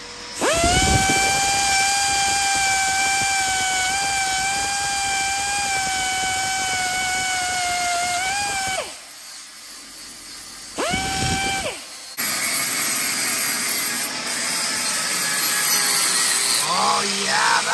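Straight die grinder with a burr whining at a steady high pitch as it grinds a small metal chainsaw-muffler part, dropping in pitch as it winds down, then running again briefly. About two-thirds of the way in, an angle grinder takes over, grinding metal with a harsher, noisier sound.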